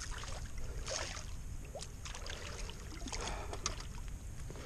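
Water splashing and lapping at a rocky shoreline, with a few short splashes about a second in and again near the end, over a low steady rumble.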